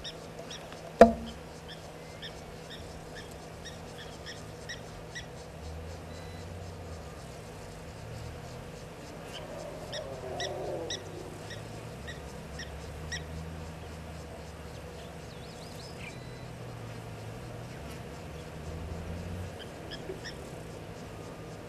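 Outdoor waterhole ambience: short high chirping calls repeating about twice a second over a steady low hum, with one sharp loud click about a second in.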